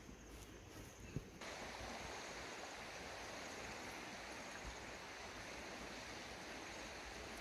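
Faint, steady outdoor hiss with no distinct events. It starts abruptly about a second and a half in, just after a single faint click.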